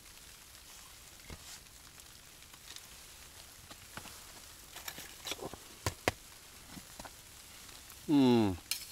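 Campfire crackling faintly, with scattered small pops and ticks and a few sharper ones past the middle. Near the end, a short voiced sound from a person, falling in pitch.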